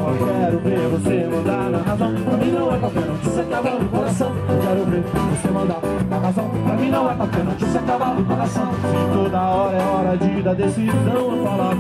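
Live samba: a woman singing over strummed small guitars and bass guitar, played continuously at a steady rhythm.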